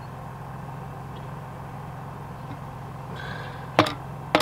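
Two sharp knocks about half a second apart near the end, as a plastic pop-up drain emitter is knocked against the end of a 4-inch schedule 40 PVC pipe: the emitter is sized for thinner drain tile and won't fit over the pipe. A steady low hum runs underneath.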